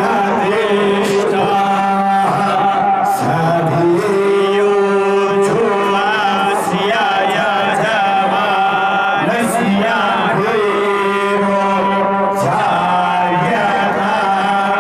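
Hindu devotional chanting by a male voice over a steady held drone, the melody rising and falling above it.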